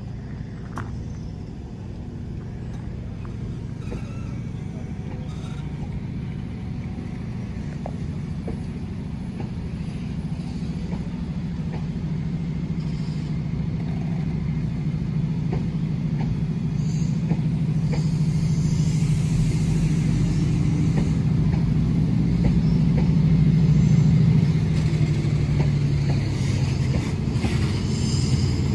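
Chiltern Mark 3 coaches rolling slowly past, with a low diesel engine drone from the Class 68 locomotive propelling at the rear, its Caterpillar V16 growing steadily louder as it approaches.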